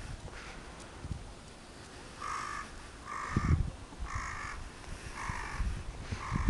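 A crow cawing five times in a steady series, about one caw a second, starting about two seconds in.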